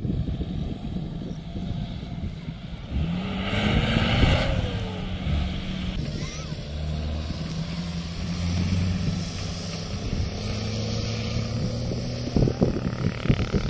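Off-road vehicle engine running over sand, revving up about three seconds in and then holding at a steady speed, with a few knocks and bumps near the end.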